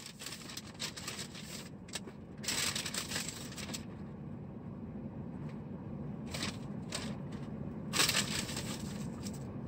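Crinkling and rustling of paper food packaging being handled, in several short bursts, over a steady low hum inside a car's cabin.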